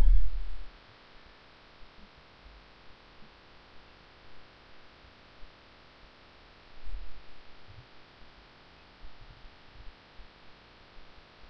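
Steady faint hiss and hum of a desktop recording microphone, with a few dull low thumps: the loudest right at the start, others about seven and nine to ten seconds in.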